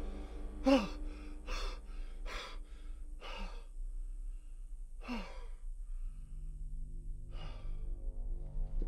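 A man breathing heavily and sighing: a short voiced groan-like sigh, then a string of deep breaths about a second apart that thin out. A low droning score note comes in about six seconds in.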